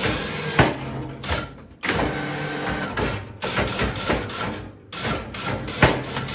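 Electric winch on a Can-Am Commander side-by-side whirring in several short runs, stopping and restarting, as it works the attached snow plow, with sharp metal clanks from the plow frame.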